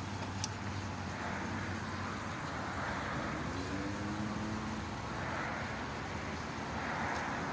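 Steady low motor-vehicle hum, with soft swells of hiss a few times as water is rinsed over the headlight lens.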